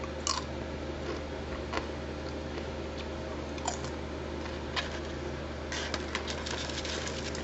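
A few separate crackles as thin, brittle potato chips are handled. From about six seconds in comes a quicker run of crinkling as hands press and fold the foil-lined chip bag. A steady low hum runs underneath.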